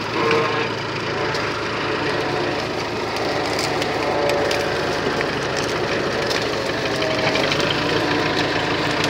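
Farm tractor engine running steadily close by.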